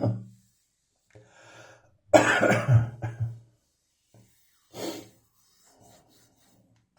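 A person coughing a dry cough: one brief cough at the start, then a louder fit of about three coughs about two seconds in, with breaths drawn in between.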